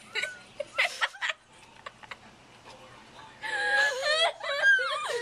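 High-pitched voices giggling and squealing without clear words, in two stretches with a quieter gap of about two seconds in the middle.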